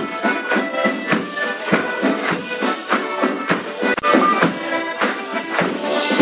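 Traditional folk dance tune played by a live band with a steady beat, including a bass drum, with the clatter of clog steps on a wooden floor.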